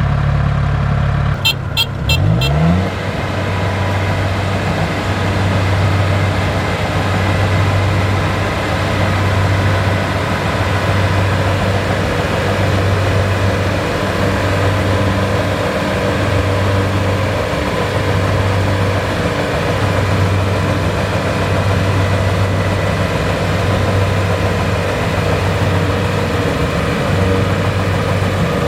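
Kubota DC-70 Plus rice combine harvester running at working speed, a steady loud drone. About two seconds in there are a few sharp clicks and the engine speeds up. After that the drone swells and fades slowly, about every two seconds.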